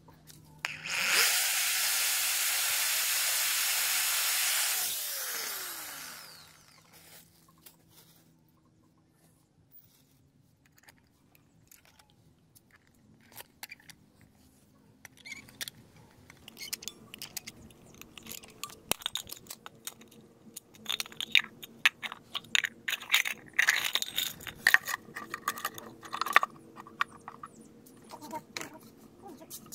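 Electric power drill running for about four seconds as it bores through a steel hinge into PVC, then winding down. After a quiet pause, a long run of scattered sharp clicks and scrapes as parts are handled and the hinge is riveted on with a hand riveter.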